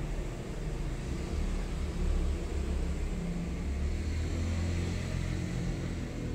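Steady low background rumble, without clicks or knocks.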